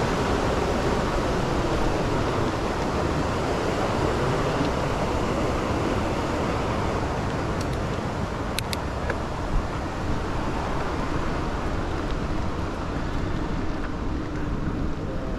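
Steady rush of wind on an action camera's microphone, mixed with the tyre noise of an electric bicycle rolling along a paved path. A few brief clicks come about eight to nine seconds in.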